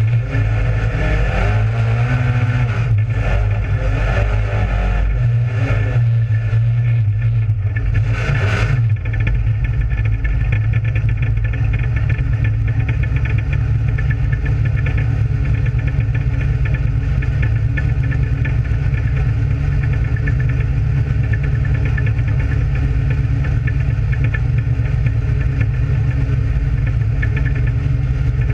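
Dirt-track race car's engine running steadily at low speed, heard from inside the cockpit as a loud, even low drone. Some wavering higher tones come and go in the first nine seconds.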